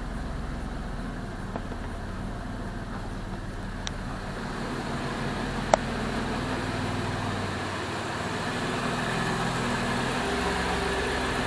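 Chrysler 3.7 V6 in a 2002 Jeep Liberty idling steadily after an engine swap, with a few light clicks, one sharper click about six seconds in.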